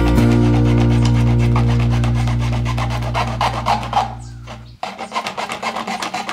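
A thin saw blade drawn back and forth through a thin plastic bottle wall, a run of rasping strokes. It is heard most clearly in the last second and a half, once the background music drops out.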